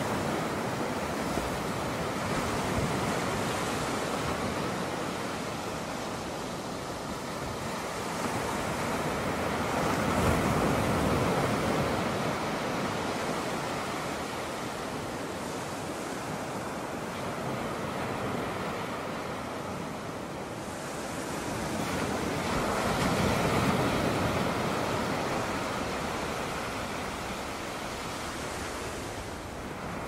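Ocean surf breaking and washing in over sandstone rock ledges, swelling and ebbing, with two louder surges about a third of the way in and again about three quarters through.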